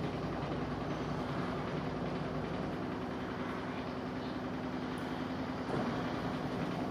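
Washing machine running with a steady mechanical rumble and a low hum, the abnormal noise it has been making.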